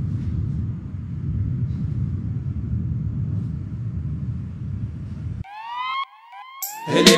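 Low, steady rumble that cuts off abruptly about five and a half seconds in. A quick run of short rising pitched sweeps follows, and music begins just before the end.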